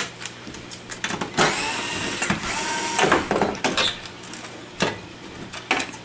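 Clicks, knocks and a longer scrape of metal brackets and cables being handled and set on the sheet-metal back of a flat-panel TV. The scrape runs between about one and a half and three seconds in, with scattered clicks before and after.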